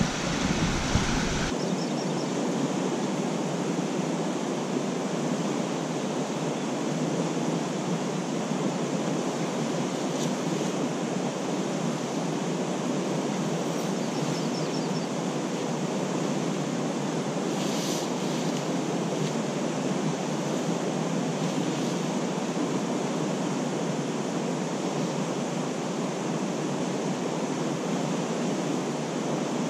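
Steady, fairly loud rushing white noise that runs without a break through the night. The deep low rumble drops away about a second and a half in.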